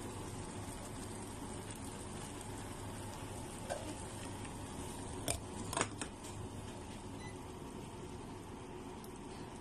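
Steady hum and hiss of an induction cooktop heating a stainless saucepan of water. There are a few sharp clinks between about four and six seconds in, as a glass lid goes onto the pan.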